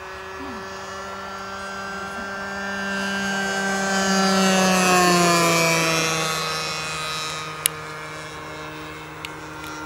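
The DLE 20 single-cylinder two-stroke petrol engine of a radio-controlled Spacewalker model plane makes a low pass. The engine note grows louder to a peak about halfway through, then drops in pitch and fades as the plane goes by. A single sharp click comes near the end.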